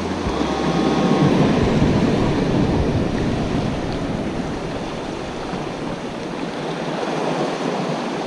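Sea surf washing against shoreline rocks: a steady rush that swells about a second in and then eases off a little.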